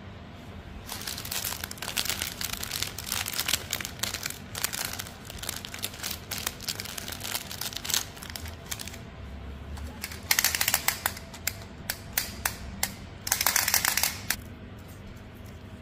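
Plastic candy wrappers crinkling as they are handled, a dense run of crackles for several seconds, then two short, louder spells of crinkling about ten and thirteen seconds in.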